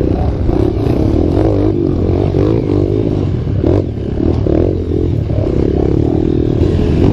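Dirt bike engine running at low revs, the revs rising and falling in short blips, with rattles and knocks from the bike going over bumps.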